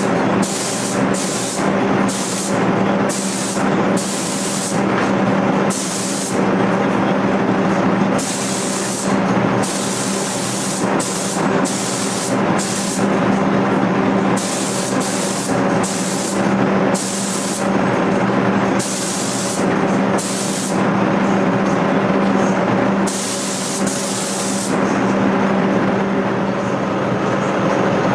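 Gravity-feed spray gun spraying in short hissing bursts of uneven length, roughly one or two a second, over a steady low drone. The bursts stop a few seconds before the end, leaving only the drone.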